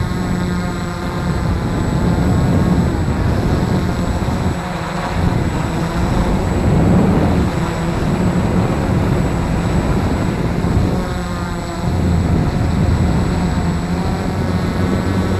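Walkera QR X350 Pro quadcopter's four brushless motors and propellers buzzing steadily in flight, heard close up from the camera mounted on it, with rushing air noise. Twice the low hum briefly dips and the pitch wavers.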